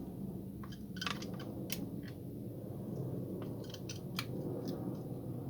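Irregular plastic clicks and snaps as the casing of a laser printer toner cartridge is prised and worked apart by hand, over a steady low hum.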